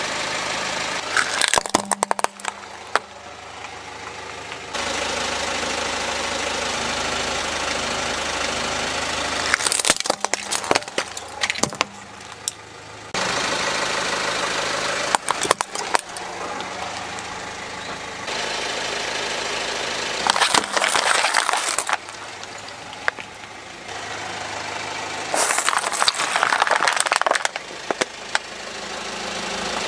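A car tyre rolling over and crushing plastic toys and plastic bottles, giving five bursts of sharp cracking and crunching. A car engine idles steadily between the crushes.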